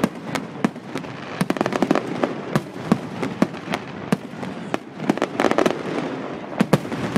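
Fireworks display: rapid, irregular sharp cracks and bangs in clusters, over a continuous crackling haze.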